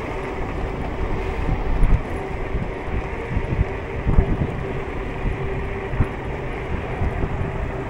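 Wind buffeting the microphone while riding an electric scooter at speed, over a steady rush of road and tyre noise, with a faint steady hum running underneath.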